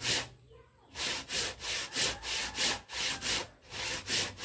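Handsaw cutting through a kakawate (madre de cacao) firewood log in quick back-and-forth strokes, about three a second, after a brief pause near the start.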